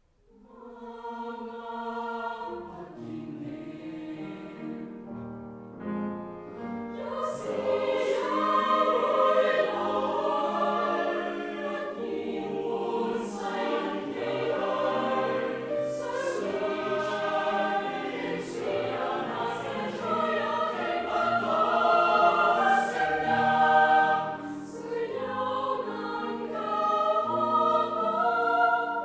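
A choir singing a Cantonese song in harmony, coming in softly out of silence with held chords and growing louder over the first several seconds. From about seven seconds in, crisp 's' sounds from the singers recur every second or so.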